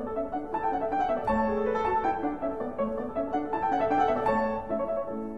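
Background piano music, a steady melody of single notes and chords.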